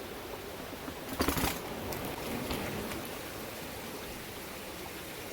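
Steady hiss of background noise, with a short burst of rustling or clattering about a second in and a few faint clicks after it.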